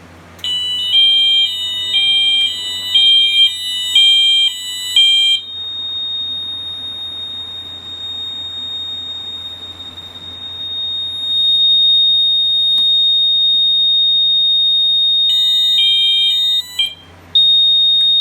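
Wheelock MT4-24-LS fire alarm horn sounding its high-low tone in alarm, two notes alternating about twice a second. It sounds for about five seconds, cuts off, and comes back briefly near the end, switched on and off by the fire alarm panel's coding. A steady high-pitched sounder tone carries on underneath the whole time.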